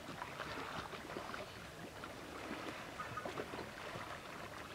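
Faint water lapping against the hull of a small boat drifting on calm sea, with small scattered knocks.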